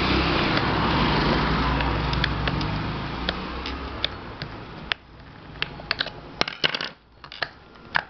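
Rustling handling noise right at the microphone for about the first five seconds, then a series of sharp clicks and light knocks as the parts of an electric fan's motor housing are handled and fitted.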